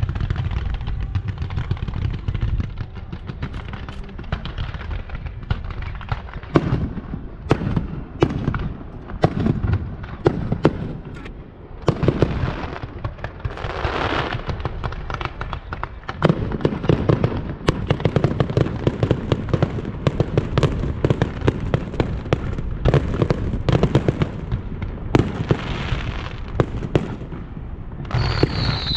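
Fireworks and firecrackers going off without pause: a dense run of sharp cracks with louder bangs scattered through. A rushing burst comes about halfway, and a high wavering whistle starts near the end.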